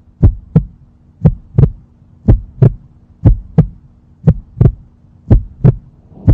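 Heartbeat sound effect: a steady lub-dub double thump about once a second, six beats in all, over a faint steady hum.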